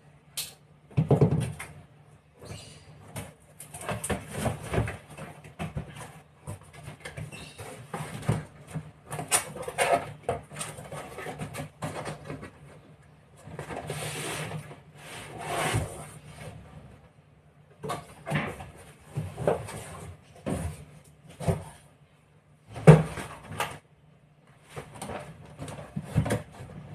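Cardboard shipping box being opened and handled: irregular scraping, rustling and scuffing of the cardboard, with a few sharper thumps as the box is knocked and a shoebox is lifted out.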